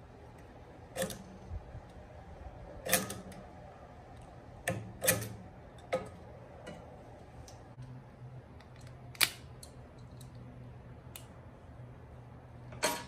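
Sharp metallic clicks and clinks of hand tools, clamp pliers and small fittings being picked up and worked, about seven at uneven intervals, while hose clamps go on a rubber fuel line.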